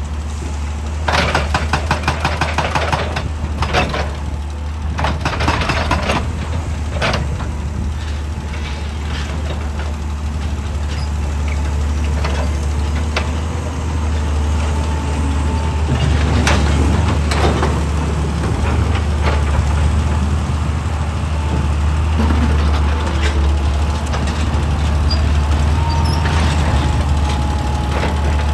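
Excavator's diesel engine running steadily, with clattering of rock and steel in the first seven seconds.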